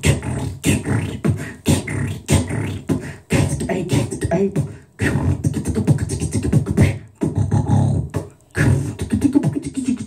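A man beatboxing into a microphone: a fast, dense rhythm of vocal drum sounds, with a few brief breaks.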